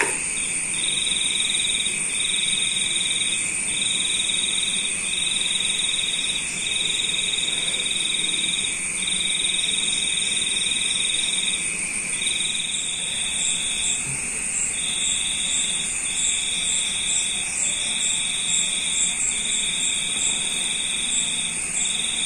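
High-pitched insect trilling, likely crickets, steady throughout, with the main trill breaking into repeated stretches of about one to two seconds and faint rapid ticking higher up in the second half.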